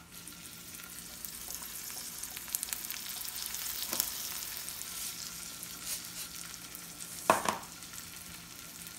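Lightly breaded sheepshead fillets sizzling and crackling steadily as they pan-fry in olive oil in a nonstick pan. A short, sharper sound stands out about seven seconds in.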